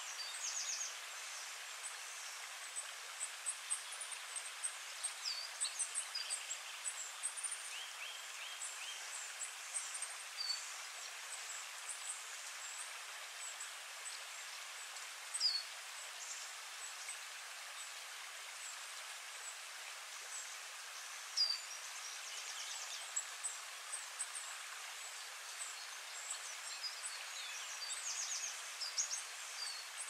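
Forest ambience: the steady hiss of a gentle stream, with small birds chirping and calling throughout in short high notes and a few quick trills.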